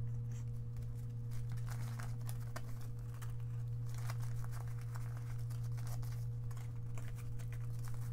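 Paper banknotes being handled and counted by hand: a stack of US bills rustling, with quick crisp flicks as notes are leafed through. A steady low hum runs underneath.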